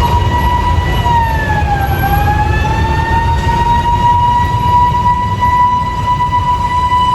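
Fire truck siren sounding a steady tone that dips in pitch about a second in and climbs back, then holds level, over a low rumble.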